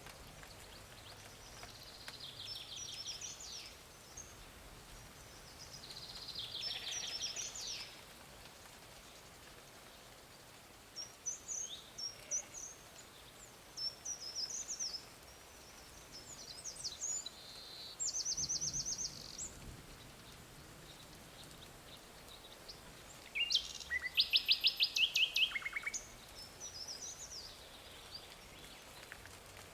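Songbird singing: a series of short, high phrases of rapid trilled notes, separated by pauses, the loudest a fast trill late on, over faint steady background noise.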